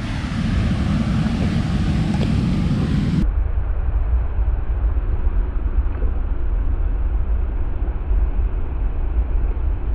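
Loud, steady rumbling noise of wind buffeting the microphone outdoors. About three seconds in it changes abruptly to a duller, muffled low rumble.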